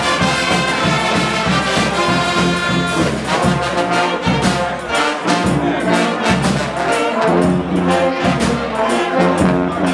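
Carnival brass band playing live: saxophones, trumpets and sousaphone play sustained notes over a steady bass-drum beat.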